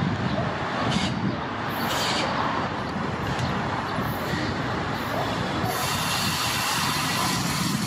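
Renfe UT-440 electric multiple unit approaching on curved track, a steady rumble with short bursts of high-pitched wheel squeal that turn continuous about six seconds in.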